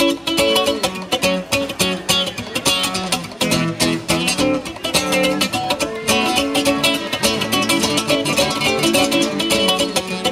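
Instrumental music led by a guitar picked and strummed in quick, even strokes, with a full run of notes and no singing.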